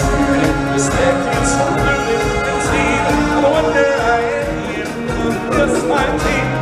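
Stage-show music with singing and percussion, played loud through the theatre's sound system during a live dance performance.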